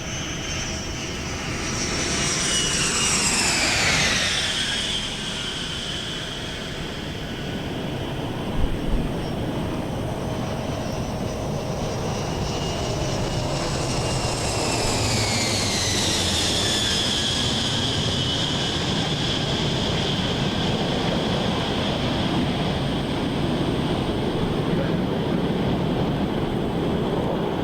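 Boeing 747 Shuttle Carrier Aircraft's jet engines flying low overhead: a steady jet noise with a high turbine whine that drops in pitch as the aircraft passes. The falling whine comes twice, about three seconds in and again about fifteen seconds in.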